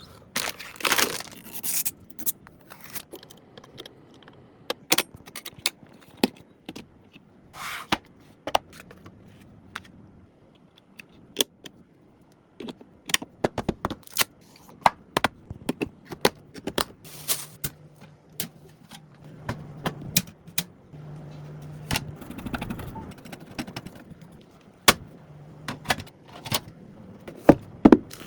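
Computer parts being handled and fitted during a PC build: a long string of sharp clicks, taps and scrapes, with a few short rustling bursts. A low hum comes and goes in the second half.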